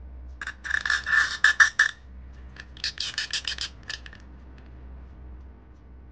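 Small plastic figure being scraped and clicked onto its round display base as it is fitted on. It comes in two runs of quick scrapes, each about a second and a half long, the first starting about half a second in.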